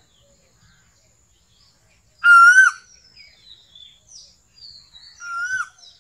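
Asian koel (koyal) calling: a loud, clear whistled note about two seconds in, then a second, fainter note near the end. Faint high chirps sound between the two calls.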